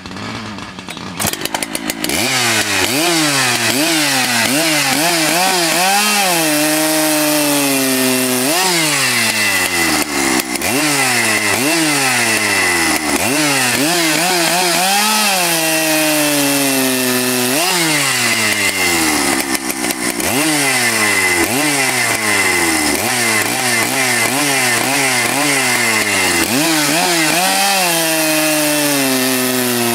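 Husqvarna chainsaw running at full throttle, cutting repeatedly through a square wooden beam. It comes in about two seconds in. Through each cut the engine pitch sags under the load, then jumps back up as the chain clears the wood, over and over.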